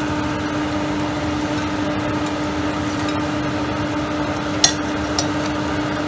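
French fries frying in hot oil with a steady sizzle over a constant low hum. About four and a half seconds in, the metal slotted skimmer gives two sharp knocks, half a second apart.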